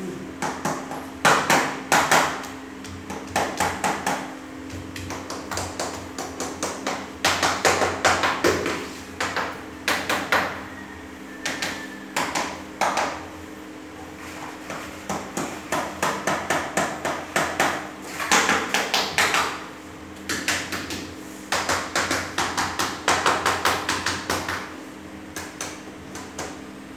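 A hammer tapping on slatted wall-cladding panels, fixing them in place, in bursts of quick light strokes with short pauses between.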